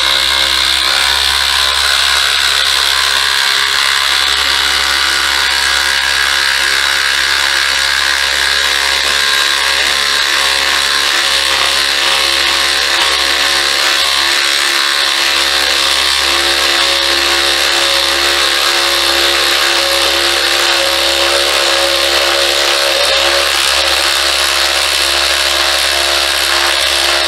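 DeWalt DCF887 20V brushless impact driver hammering steadily as it drives a 12-inch lag bolt into wood, running at an even pitch throughout.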